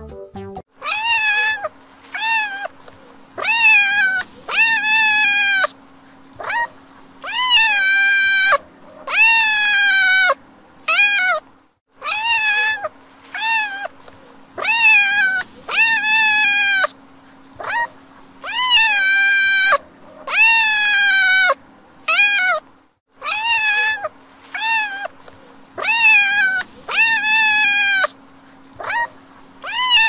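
Domestic cats meowing over and over, about one meow a second, each a drawn-out high call, with a faint steady hum underneath. The meows break off briefly twice, about 12 and 23 seconds in.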